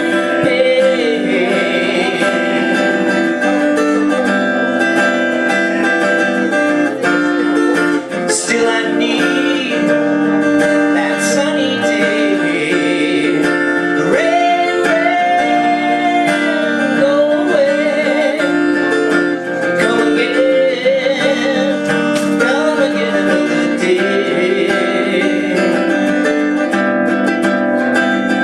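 Live solo performance of a song: an acoustic guitar played with a man singing.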